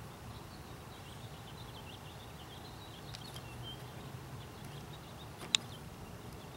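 Faint bird chirps over a low steady background rumble, with a single sharp click about five and a half seconds in.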